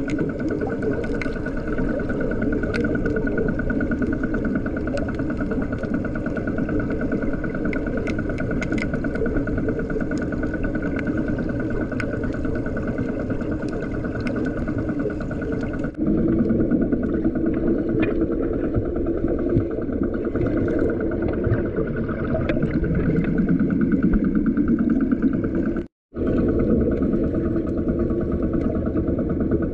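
Steady engine drone heard underwater, muffled through the water, with scattered faint clicks. It changes slightly about halfway through and drops out for a moment near the end.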